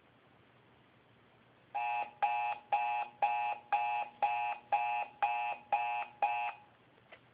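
Alarm clock beeping: about ten short, even beeps at about two a second, starting a couple of seconds in and stopping near the end.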